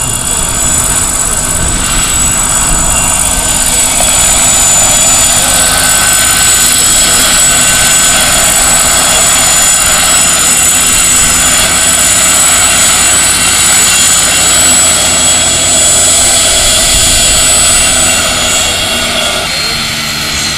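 Scale Lama RC helicopter coming in and setting down, its turbine sound module giving a steady high jet-turbine whine over the noise of the main rotor. The sound grows louder as the helicopter comes close and eases slightly near the end.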